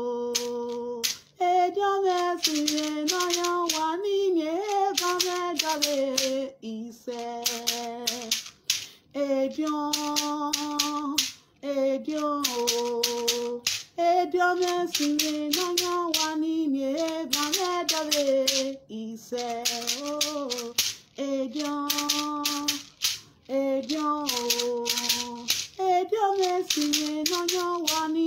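A woman singing a song in short phrases with brief breaks, accompanying herself on a shekere, a beaded gourd rattle, shaken in a quick steady rhythm.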